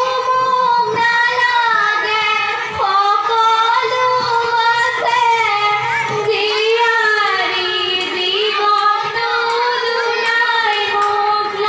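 A group of girls singing an Assamese biya naam (traditional wedding song) together, in long, held, wavering notes.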